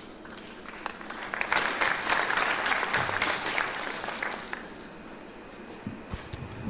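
Audience applauding with many hands clapping, starting about a second in, swelling and dying away after about four seconds. A few low knocks follow near the end.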